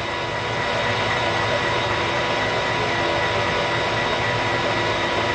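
Metal lathe running steadily: an even mechanical hum with several steady whining tones from the motor and gear train.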